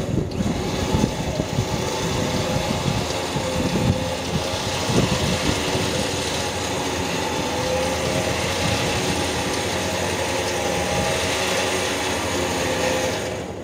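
The Toyota Prado's winch running under load, winding in its line and dragging the roughly 2-ton vehicle a couple of metres toward a screw-in tent peg that holds. A steady whine that cuts off suddenly near the end, with wind rumbling on the microphone in the first few seconds.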